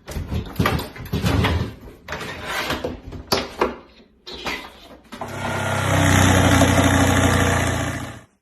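Irregular knocking and scraping, then a power drill runs steadily for about three seconds and cuts off suddenly.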